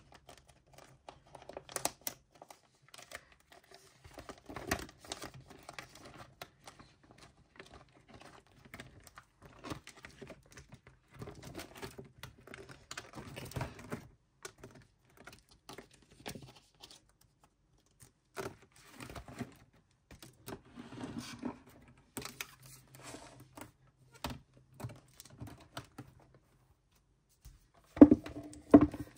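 Plastic binder pages and photocard sleeves being handled: crinkling and rustling with scattered small clicks and taps, and a louder knock near the end.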